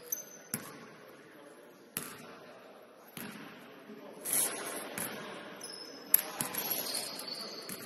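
A basketball bouncing on the court in a game: a handful of irregular thuds, the loudest about six seconds in. Sneakers squeak briefly near the end, and players call out faintly.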